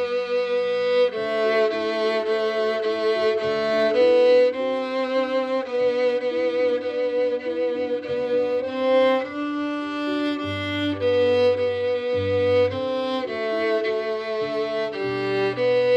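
Violin playing a simple beginner tune over a recorded backing accompaniment, some longer notes held with vibrato.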